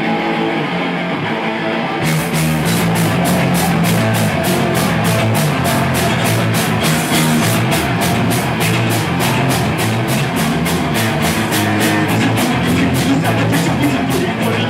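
Punk rock band playing live: electric guitar alone at first, then about two seconds in the drums come in with a fast, even cymbal beat and the full band plays on.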